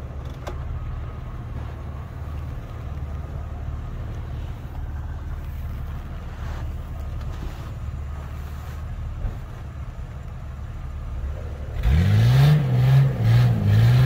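Steady low engine idle, then about twelve seconds in a Jeep Wrangler's engine revs hard several times, its pitch rising and falling, as the tyres spin in snow on an uphill climb.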